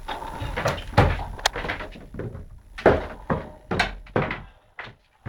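Irregular knocks and thumps, about a dozen of them, from a Siberian cat pouncing, landing and bumping into things as it chases a laser dot.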